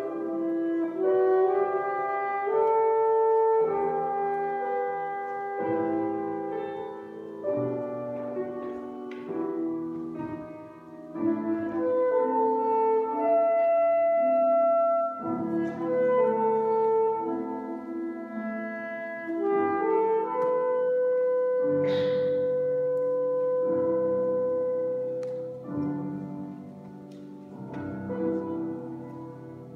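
Alto saxophone playing a romance melody in long held notes over sustained chordal accompaniment, growing softer near the end.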